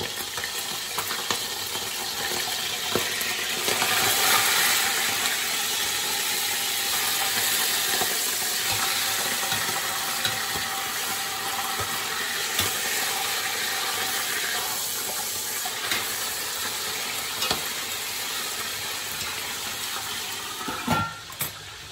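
Marinated roast beef joint sizzling and spattering in hot oil in a stainless steel pot, a steady loud frying hiss with scattered crackles and pops; the heavy spatter comes from the wet lemon marinade on the meat. Near the end a clank as the metal lid goes onto the pot, and the sizzle drops away.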